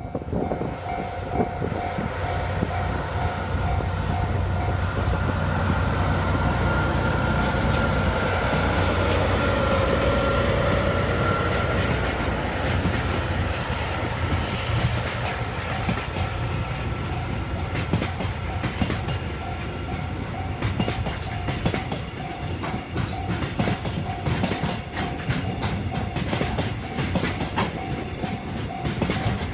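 JR Freight HD300 series-hybrid shunting locomotive passing with a low engine rumble, then a string of freight wagons clattering over the rail joints from about halfway through. A level-crossing bell rings in steady repeated pulses.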